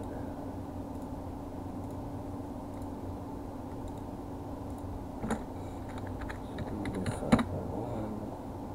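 Computer keyboard keys being typed: one keystroke about five seconds in, then a short run of keystrokes near seven seconds ending in a louder tap. A steady low hum sits underneath.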